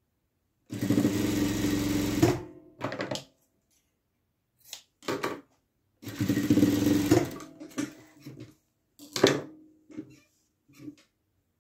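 JUITA industrial sewing machine stitching patchwork fabric strips in two runs of a second or two each, about a second in and again about six seconds in. Between and after the runs come shorter bursts and sharp clicks.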